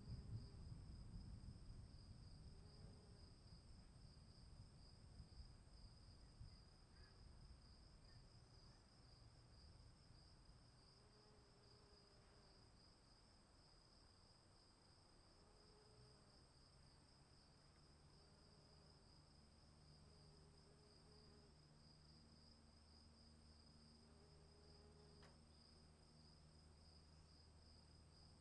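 Faint storm ambience: crickets trilling steadily in a high, pulsing chorus, while a low rumble of thunder dies away over the first several seconds. Soft low calls recur every few seconds.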